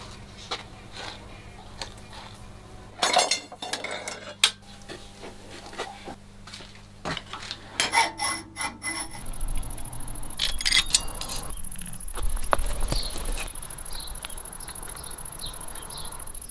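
Clinks and rattles of metal objects being handled, with a few louder clattering bursts. About halfway through, a steady high-pitched whine and a low rumble come in and hold.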